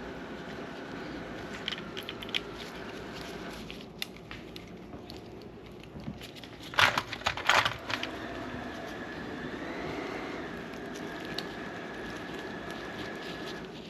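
Steady electrical hum with a faint high whine, broken about seven seconds in by a short burst of loud crackling and clicking, like wires or plastic parts being handled.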